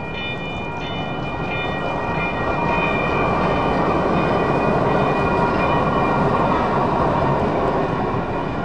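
General Signals Type 2 electronic crossing bell dinging in a rapid steady rhythm while a train passes the crossing. The train's rumble grows louder over the first few seconds and partly covers the bell.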